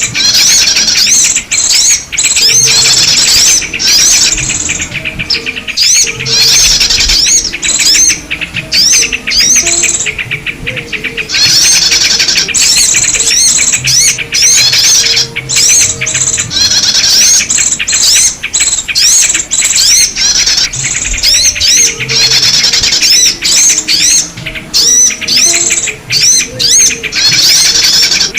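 Bird-lure recording of trucuk (yellow-vented bulbul) and small-bird calls: dense, overlapping chirping and twittering made of many quick high notes, loud and nearly continuous, with a couple of brief lulls.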